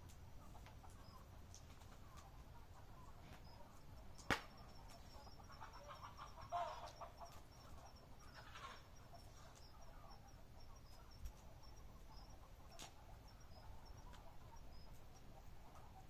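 Quiet night campfire with two sharp pops, one about four seconds in and a fainter one later. A short rasping call-like sound comes around the middle, over a faint steady high ticking of insects.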